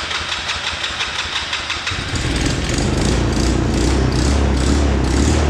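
Small single-cylinder engine of a 125cc Chinese ATV running after it has fired up on a replacement spark plug. About two seconds in its note deepens and gets a little louder.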